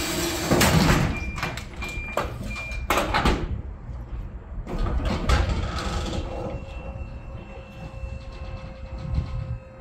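Mechanical clatter and knocks with three short, high beeps about a second to three seconds in, settling after about six seconds into a steady machine hum.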